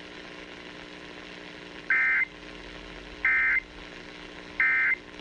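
Emergency Alert System end-of-message (EOM) code: three short, identical bursts of digital data tones about 1.4 seconds apart, closing the nationwide test alert as heard over broadcast radio. A low steady hum runs underneath.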